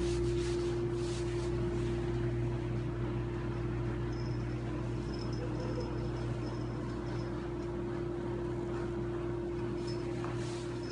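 Steady mechanical hum with one constant pitched tone, like a running household appliance, with a few faint scuffs in the first second or so.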